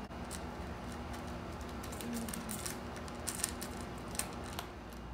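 Cat eating from a metal food bowl: scattered soft clicks of chewing and of food against the bowl, more of them past the middle, over a faint steady hum.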